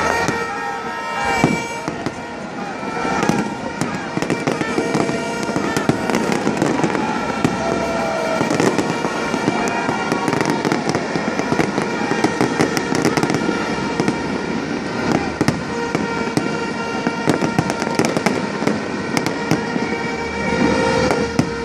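New Year fireworks display bursting and crackling non-stop, many sharp bangs in quick succession, over the noise of a large crowd's voices.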